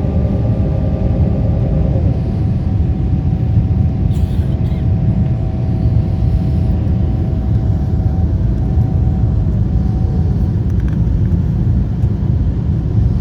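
Airbus A340 airliner rumbling steadily as it lands, with a few steady engine tones over the low rumble; the tones fade out about two-thirds of the way through, one of them gliding down in pitch.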